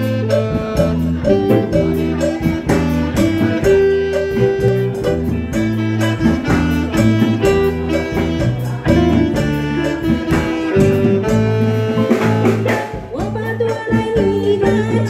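Instrumental introduction of a song, with amplified plucked guitar-like notes and keyboard over a steady bass line. A woman's singing voice comes in near the end.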